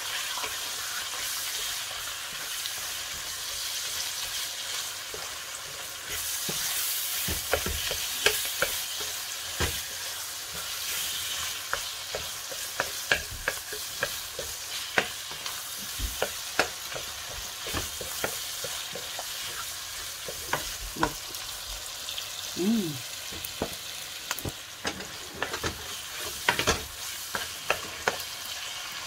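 Minced meat and onions sizzling in oil in a non-stick frying pan, stirred with a plastic spatula that scrapes and clicks against the pan many times.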